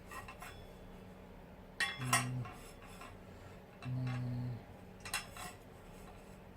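Metal parts of a folding laptop table clinking and knocking as they are handled and fitted together: a few separate clinks, the loudest about two seconds in.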